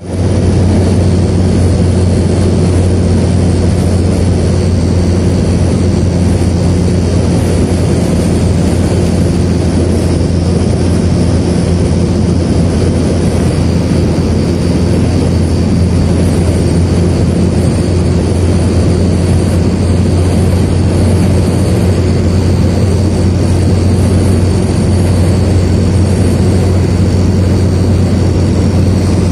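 A car driving at highway speed through a sandstorm, heard from inside the cabin: a steady, loud, low drone of engine, tyre and wind noise with no breaks.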